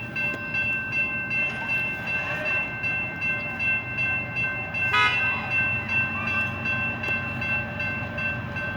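CSX freight train rolling past: a steady rumble and clatter of the cars on the rails, with a steady high ringing tone over it and a brief sharper sound about five seconds in.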